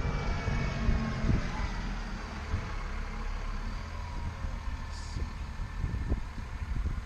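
Steady low hum of a vehicle engine running, with a few light clicks.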